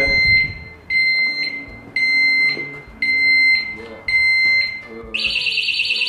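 Auvray alarm disc lock on a motorcycle's front brake disc, set off by being moved: five short high beeps about once a second, then, about five seconds in, its full alarm starts as a continuous loud warbling tone that grates on the ears.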